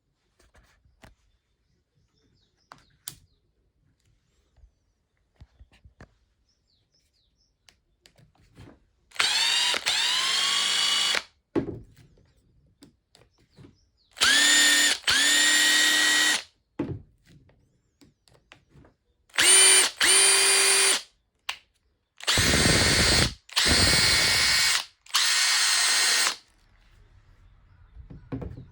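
Makita TP141D cordless impact driver's motor test-run after repair, with no load. It is triggered in about four bursts of one to four seconds, each spinning up with a rising whine and then running steadily. Faint clicks come in the pauses between bursts.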